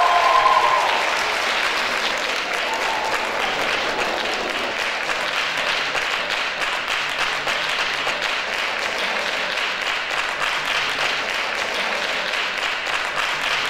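Audience applauding steadily; the last sung note of the song fades out in the first second.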